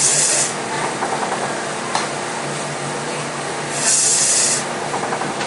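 1910 Allis-Chalmers single-cylinder Corliss steam engine running slowly. It gives a steady mechanical hum, a loud hiss of steam near the start and again about four seconds later, and a sharp click about two seconds in.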